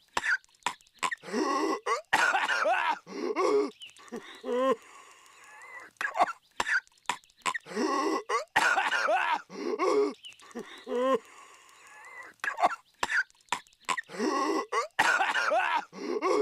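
A cartoon character's voice coughing and choking violently: harsh hacking coughs and gasping croaks in the same cycle, which repeats about every six and a half seconds.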